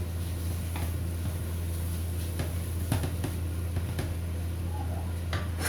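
A metal spatula knocks against a wok a handful of times, at uneven intervals, while the fried rice vermicelli is stirred. A steady low hum runs underneath.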